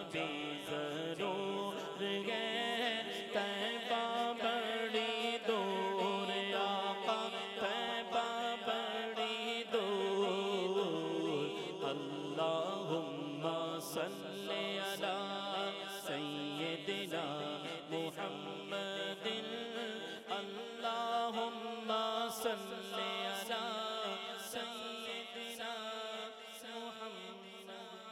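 A man's solo voice singing an Urdu naat into a microphone, drawn out in long, wavering melismatic notes, fading toward the end.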